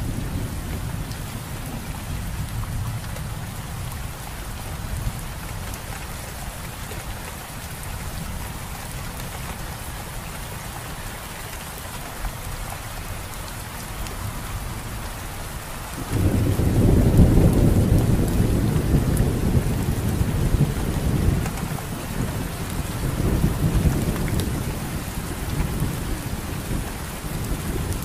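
Steady rain falling on foliage, with thunder rumbling low underneath. About sixteen seconds in, a loud roll of thunder breaks in suddenly and rumbles for several seconds, swelling once more a little later.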